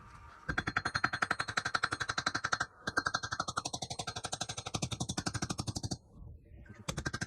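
Rapid, evenly paced metal-on-metal strikes on a steel breastplate while its rivets are set, the plate ringing under each blow. The strikes come in long runs, pausing briefly about two and a half seconds in and again near the end.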